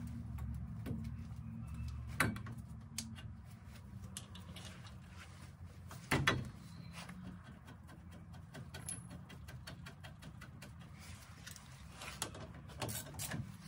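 Light clicks and knocks of metal parts and tools being handled while a truck's front brake caliper and rotor are reassembled, with a sharper knock about two seconds in and the loudest about six seconds in. A low steady hum runs underneath.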